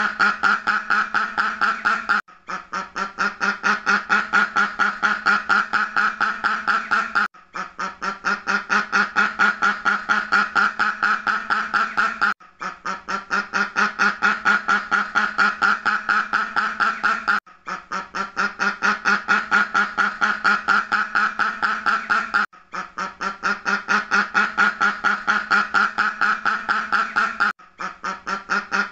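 Duck quacking in fast, even runs of about four to five quacks a second. The same run repeats as a loop about every five seconds, with a brief break between runs.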